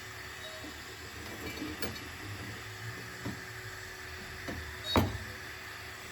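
A few light taps and clicks over a steady hiss, then one sharp knock about five seconds in, from paintless dent repair work on a car door panel.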